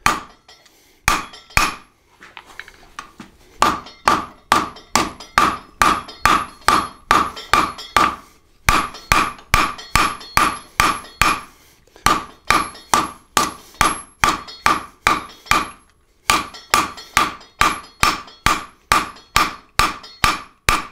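Hand hammer striking a red-hot high-carbon steel flat bar on an anvil to draw it out, at about three blows a second in runs broken by short pauses. Each blow rings off the anvil.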